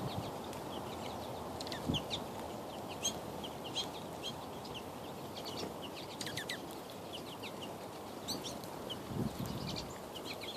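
Small birds chirping, many short high chirps scattered throughout, over a steady background hiss, with a couple of soft low thumps.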